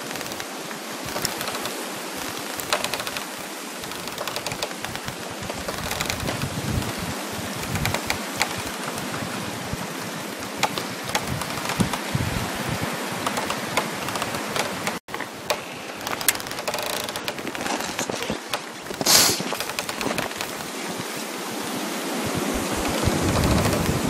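Dense crackling of frost and ice, many small sharp clicks over a steady wind-like hiss. The sound cuts out for an instant a little past halfway, there is a brief sharp hiss a few seconds later, and a low rush of wind swells near the end.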